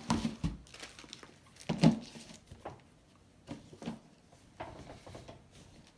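Sneakers being handled and turned over: scattered knocks and rubbing, with a louder thump about two seconds in.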